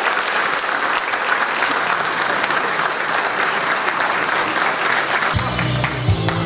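Large hall audience applauding at the close of a speech. About five seconds in, music with a steady bass starts playing over the applause.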